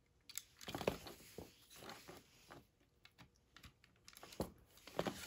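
Hard plastic parts of a Transformers action figure clicking and tapping as its guns are handled and pegged onto it. A few scattered clicks come in the first second or so and again near the end, with a quieter stretch between.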